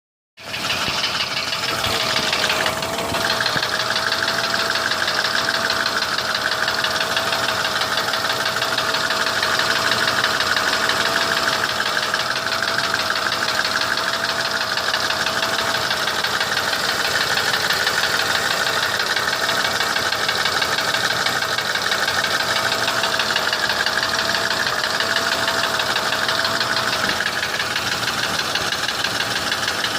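Mercedes-Benz ML320 (W163) 3.2-litre V6 engine running steadily with a rapid knocking from the engine over a faint steady whine. The owner says the knock began after an oil change.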